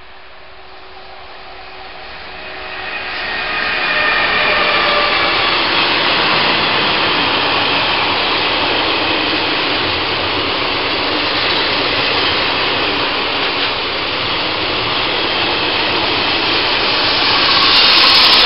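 Heavy freight train passing close by: a DB class 152 electric locomotive comes up, its noise building over the first few seconds, then a long string of flat wagons loaded with tanks rolls past with steady wheel-on-rail noise. Near the end the class 232 diesel locomotive pushing at the rear passes, the loudest moment.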